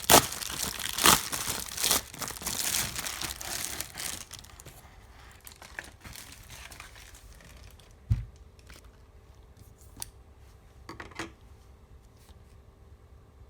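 A delivered package being torn open, with its wrapping crinkling and tearing hard for about four seconds. Quieter rustling and handling follow, with one low thump about eight seconds in.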